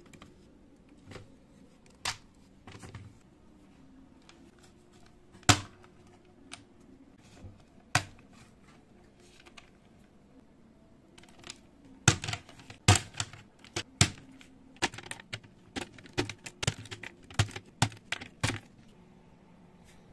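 Plastic keycaps of an old HP PS/2 keyboard clicking as they are pried off one by one. A few sharp clicks are spread well apart at first, then a quick run of them about twelve seconds in, lasting some six seconds.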